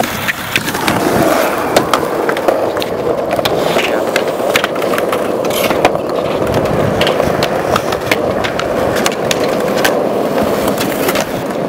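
Skateboard wheels rolling over pavement, a steady rumble broken by many sharp clicks and clacks from the board.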